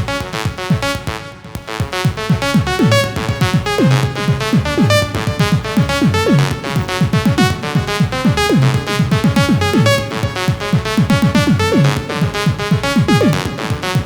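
Electronic chiptune-style music, most likely from the UVI 8-Bit Synth, with a steady beat and fast repeating synth notes. Short falling-pitch sweeps recur throughout.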